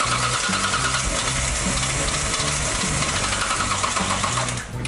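Starter motor cranking a Datsun 240Z's L-series straight-six, fitted with a home-built crossflow head and triple carburettors, as it is brought back to life after standing unused. It cranks steadily for about four and a half seconds and stops near the end.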